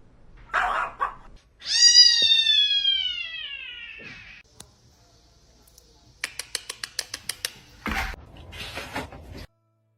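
A cat meowing: one long, drawn-out meow about two seconds in that slides down in pitch. Later comes a quick run of clicks, about six a second, and then a thump.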